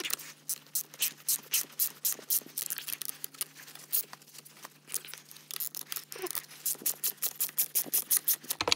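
Hand ratchet wrench clicking steadily, about four clicks a second, as a bolt on the tractor's front axle housing is backed out.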